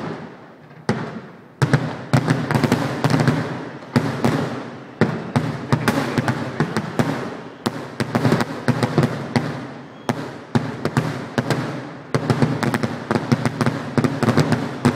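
Fireworks display: aerial shells bursting in quick succession, a dense barrage of bangs and crackles, several a second, each trailing an echoing rumble. It starts with a single bang and thickens into a near-continuous volley from about two seconds in.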